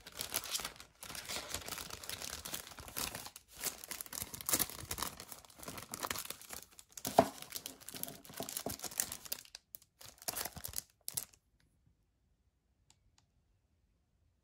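Plastic shrink-wrap on a DVD case crinkling and tearing as it is picked at and peeled off, with one sharper crackle about seven seconds in. The sound cuts off suddenly about eleven seconds in, leaving near silence.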